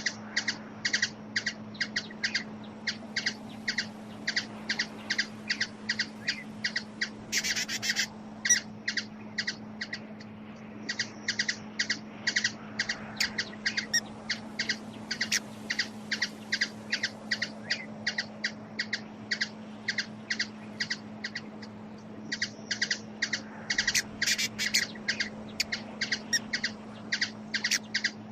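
A small bird giving short, high chip calls over and over, about three a second, with a couple of brief pauses, over a steady low hum.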